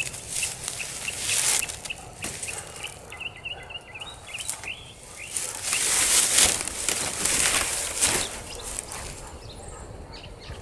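Rustling of dry stick weeds and dead leaves with the scraping and knocking of a weathered wooden door frame being tilted and dragged out of the way, loudest about six to eight seconds in. A few short, high bird chirps come around three seconds in.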